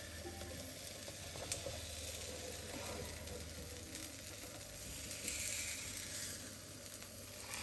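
Egg omelette sizzling steadily in a nonstick frying pan over a gas burner, with light scrapes as a spatula lifts its edge.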